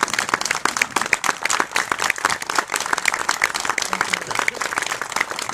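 Audience applauding: many hands clapping in a dense, steady run at the close of a live song performance.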